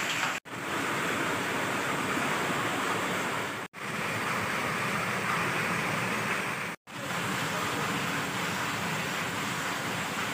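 Steady rushing, hissing noise that cuts out abruptly for a split second three times.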